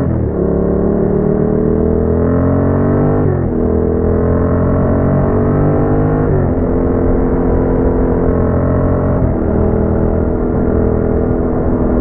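Yamaha MT-07's parallel-twin engine through a Roadsitalia aftermarket exhaust, pulling through the gears: the note rises gradually in each gear and drops sharply at each upshift, about every three seconds, with shifts right at the start and three more after it.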